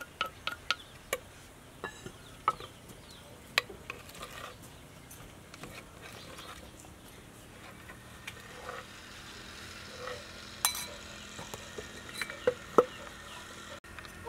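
A metal spoon scraping and tapping on a wooden pestle and mortar while spice paste is scraped out, heard as scattered light clicks and knocks with a few clinks of bowls. The clicks are thickest over the first few seconds and thin out after.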